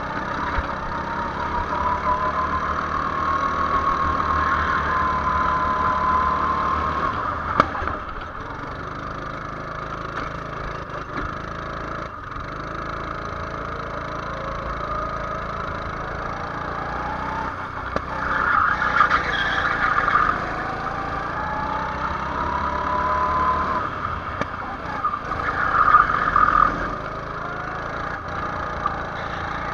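Go-kart engine heard from on board, its pitch climbing as the kart speeds up and dropping as it slows for corners, then climbing again. Two louder rushes of noise come about two-thirds of the way through and near the end.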